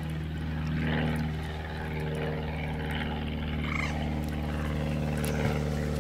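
A steady engine drone holding one even pitch, with no change in speed.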